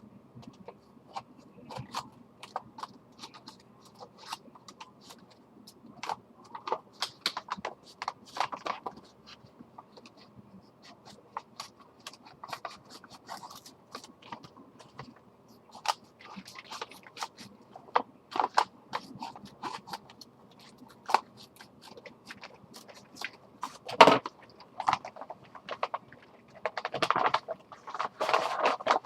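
Packaging being opened and handled by hand: irregular rustling, crinkling and scraping with scattered sharp clicks, one sharp click about twenty-four seconds in and a busier stretch of rustling near the end.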